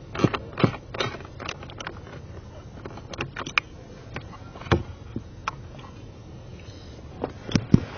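Irregular sharp clicks and knocks: several quick ones in the first second, scattered ones through the middle, and a cluster near the end.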